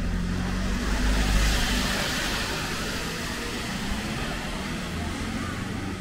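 A motor vehicle passing by: a low engine rumble with a hiss that swells to its loudest a second or two in, then slowly fades away.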